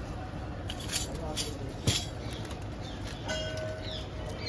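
Busy market background: voices of people around and a few short sharp clinks, the loudest about two seconds in, with a steady held tone near the end.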